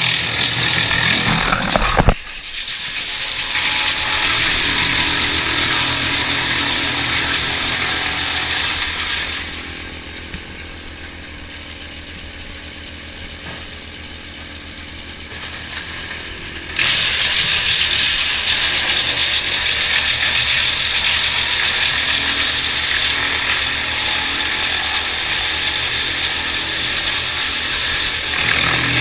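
Tractor-mounted wood chipper running and grinding up leafy branches fed into its hopper. It drops to a quieter run for several seconds in the middle while no wood is going in, then grinds loudly again.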